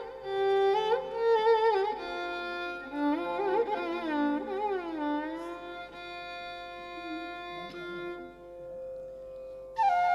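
Carnatic violin playing slow, gliding phrases in raga Bilahari over a steady drone. A flute comes in louder just before the end.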